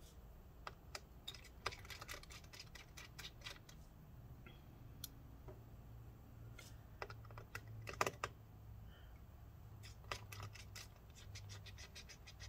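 Small precision screwdriver with a pentalobe 0.8 bit turning out tiny screws from a MacBook Pro's antenna bar: bunches of light metal clicks and ticks, the loudest about eight seconds in.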